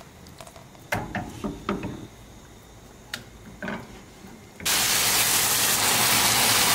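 A few light knocks and clicks of pans and utensils, then, about two-thirds of the way through, a sudden loud, steady sizzle of thin chicken breast slices frying in olive oil in a hot pan.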